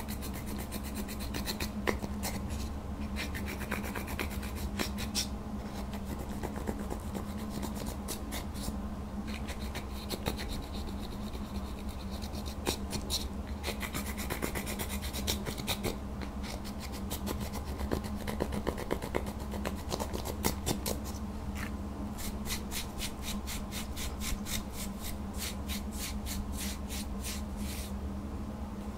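Pressed eyeshadow being scraped and crumbled out of its palette pans with a small tool: dry scratching and rasping strokes. Near the end comes a quick run of scraping strokes, about five a second, with a steady low hum underneath throughout.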